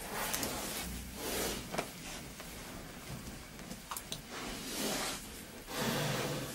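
Wild boar rooting in loose soil with its snout, snuffling in short noisy puffs of breath every second or so, with the soft scrape and crunch of earth.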